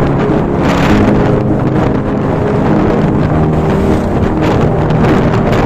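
Motorcycle engine running steadily while riding at speed, with wind buffeting the microphone.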